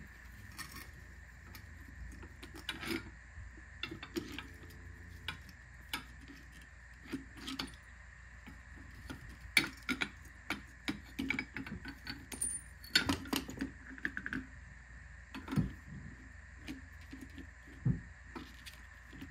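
Light metal clinks and knocks at irregular intervals as the parts of a strut assembly are handled and fitted together: the top mount being seated onto the coil spring.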